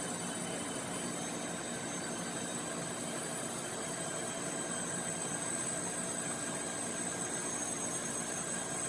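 A truck lift gate's electric motor running steadily for about nine seconds with a high whine, stopping just after the end.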